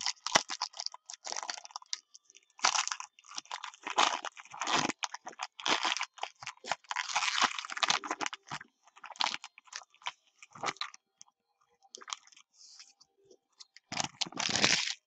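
Foil trading-card pack wrapper being torn open and crinkled by hand, in irregular rustling bursts.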